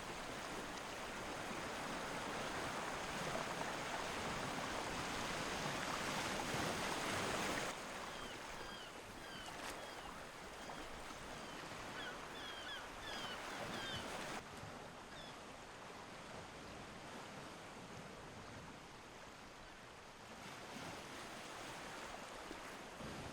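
Black Sea waves washing on the shore: a steady hiss of surf that drops in level at a few abrupt changes. Through the middle, a scatter of short, high chirps sounds over the surf.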